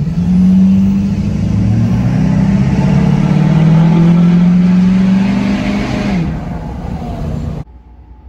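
Lifted Ford Super Duty diesel pickup's engine accelerating hard, heard from inside the cab. The engine note drops once about two seconds in as the transmission shifts, climbs steadily again, then falls off about six seconds in as the throttle is let off. The sound cuts off abruptly near the end.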